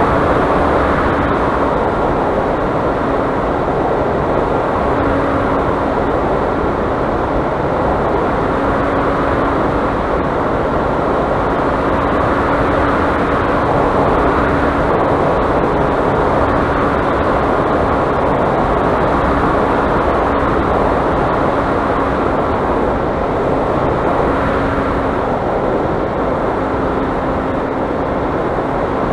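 Onboard sound of an RC flying wing in flight: a steady rush of airflow over the camera, with the drone of its electric motor and propeller. The motor's faint steady tone fades in and out several times.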